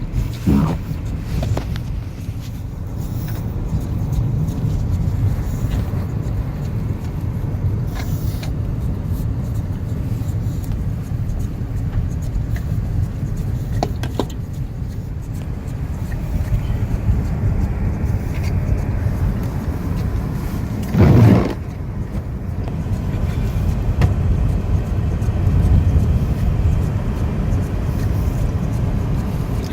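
Car driving, heard from inside the cabin: a steady low rumble of road and engine noise, with a few light clicks and one brief louder bump about two-thirds of the way through.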